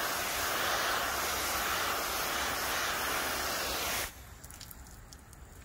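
A spray of water hissing steadily onto a car's hood, cutting off abruptly about four seconds in.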